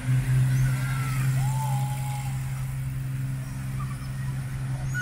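Ship's horn sounding one long, low, steady blast that stops abruptly near the end.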